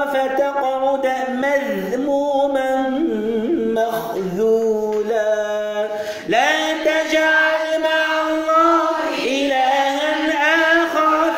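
A man reciting the Quran in a melodic, chanted style (tajwid), drawing out long held notes with sliding pitch. There is a short pause for breath about six seconds in before the next phrase.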